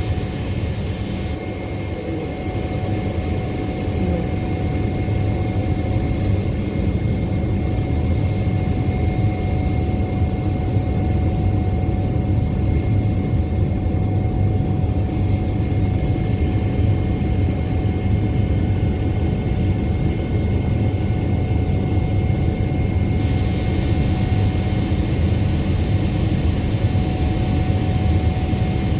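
Jet airliner cabin noise: a steady low rumble of engines and airflow, with two faint constant whining tones over it.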